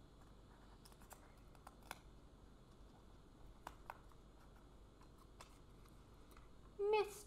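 Faint, scattered light clicks and taps from paper circles and jigsaw pieces being handled on a cardboard-backed puzzle. Near the end a person's voice starts a loud held, sung note.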